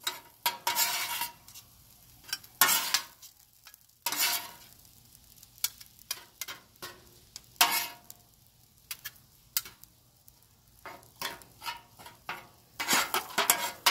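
Two metal spatulas scraping and clanking on a flat-top griddle as fried rice is tossed and chopped, with a light sizzle between the strokes. The strokes come every second or two, with a quick flurry near the end.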